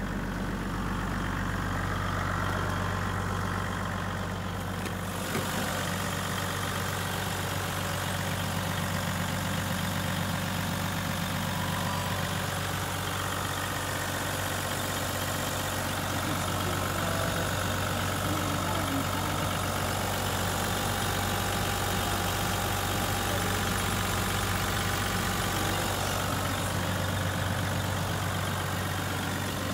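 Hino Liesse II bus's 1HD-FTE 4.2-litre straight-six turbo diesel idling steadily. A steady hiss joins about five seconds in.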